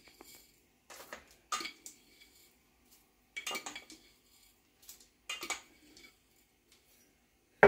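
A spoon clinking and scraping against a glass jar and a stainless steel mixing bowl in a few short, separate bursts as hemp hearts are scooped out and tipped into the bowl.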